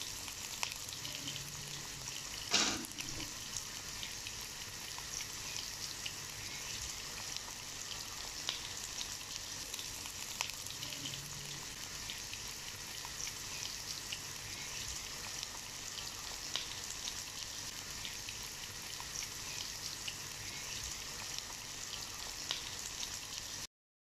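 Sliced onions sizzling and crackling in hot oil in a nonstick wok, stirred with a spatula, with one sharp knock about two and a half seconds in. The sound cuts off abruptly just before the end.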